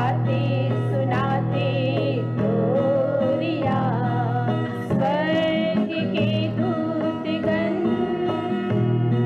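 Small choir of women singing together in long held notes, accompanied by an acoustic guitar.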